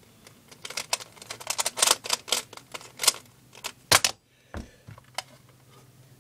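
A plastic 3x3 Rubik's cube being turned fast by hand, a rapid irregular run of clicking turns through the final step of a speedsolve. About four seconds in, the loudest click comes as the hands slap down on a StackMat timer to stop it, followed by a dull thud.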